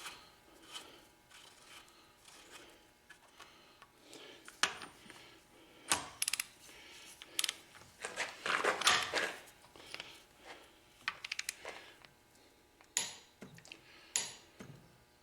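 Scattered metallic clicks and clinks of hand tools, with a few quick runs of clicks from a ratcheting torque wrench tightening a Quincy compressor's valve adjustment to 60 pound.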